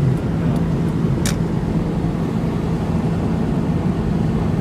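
Steady low drone of a car driving, heard from inside the cabin, with one sharp click about a second in.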